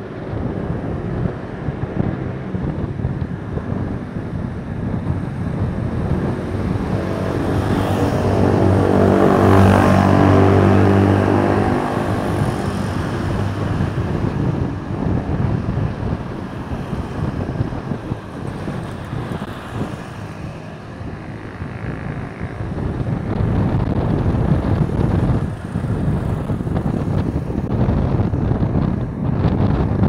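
Road traffic and wind noise on a bicycle-mounted camera's microphone. A motor vehicle passes close about eight to twelve seconds in, its engine hum rising and then fading.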